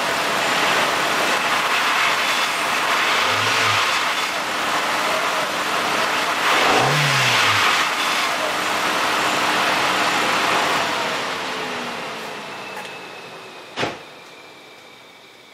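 Volkswagen GTI 1.8T turbocharged four-cylinder engine running with a steady rushing noise over it, revved briefly twice a few seconds apart. The sound dies away over the last few seconds, with one sharp click near the end.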